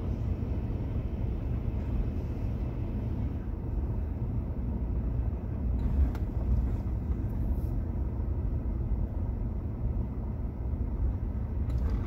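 Car driving slowly, heard from inside the cabin: a steady low rumble of engine and tyre noise, with a brief knock about six seconds in.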